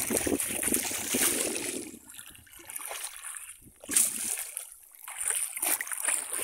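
Shallow water splashing and sloshing around a bamboo polo fish trap worked by hand, in irregular bursts, with one sharp splash about four seconds in.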